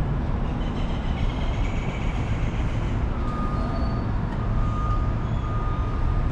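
A vehicle on the move: steady low engine and road rumble, with a faint thin high tone joining about halfway.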